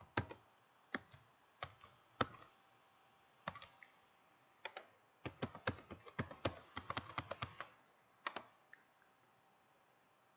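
Faint typing on a computer keyboard as a password is entered. There are a few scattered keystrokes, then a quick run of about a dozen keys a little past the middle, and one last click after that.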